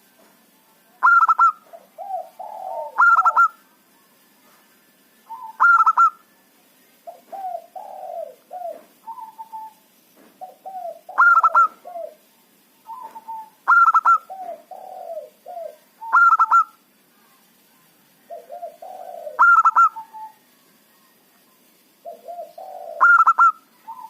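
Zebra dove (perkutut) cooing its song over and over, about eight phrases: each opens with a loud, sharp high note and runs into lower rolling coos, with short pauses between phrases.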